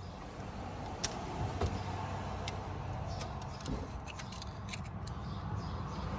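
Light metallic clicks and clinks of hand tools working on a car's clutch release parts, scattered irregularly over a low steady hum.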